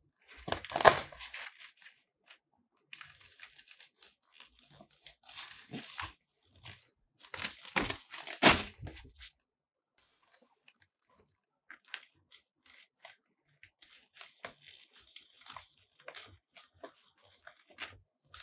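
White fabric of a Godox octagon softbox rustling and crinkling as it is unfolded and handled. The loudest bursts come about a second in and again from about seven to eight and a half seconds, with lighter rustles and small ticks in between and toward the end.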